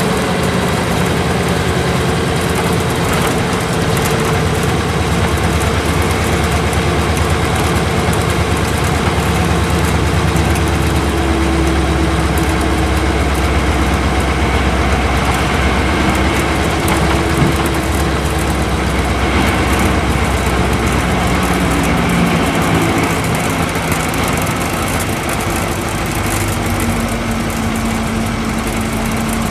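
Isuzu Cubic KC-LV380L bus's V8 diesel engine running as the bus drives, heard from inside the cabin along with road noise. The engine note steps lower about eleven seconds in and again a little past twenty seconds.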